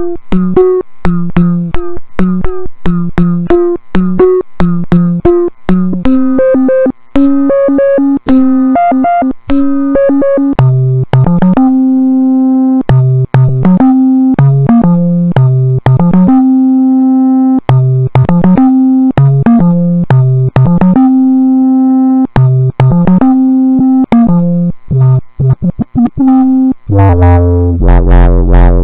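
BitBass, a homemade breadboard synthesizer (Arduino Uno sound source into an analog low-pass filter, envelope generator and amplifier), played from a keyboard. It opens with a quick run of short, sharply cut notes, moves to longer held notes about ten seconds in, and drops to deep, buzzy bass notes near the end.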